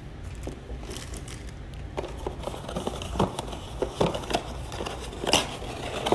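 Hands handling unboxed items and their packaging: a scatter of light clicks, taps and rustles, starting about two seconds in, with the loudest knock a little past five seconds.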